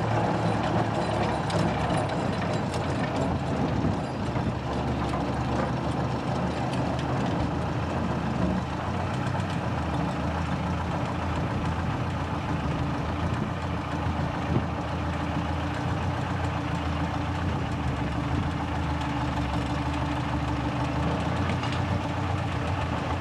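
Narrow-gauge diesel locomotive engine running steadily at an even, low speed, with no rise or fall in pitch.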